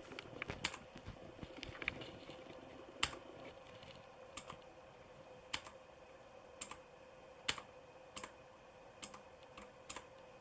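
Cherry MX Blue key switches on a Motospeed CK62 mechanical keyboard clicking under separate key presses: a quick run of clicks at the start, then single clicks about once a second. A faint steady hum sits underneath.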